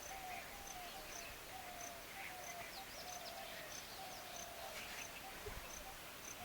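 Faint outdoor nature ambience: birds calling in short, slightly falling notes and quick chirps, over a high, thin note that pulses about twice a second.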